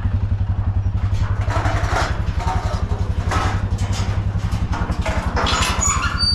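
Farm bike's engine idling with a steady, evenly pulsing beat, and a few short, higher-pitched bursts over it.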